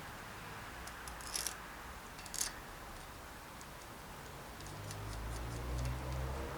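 A few light clicks and faint irregular ticking, with a low hum coming in for the last second and a half.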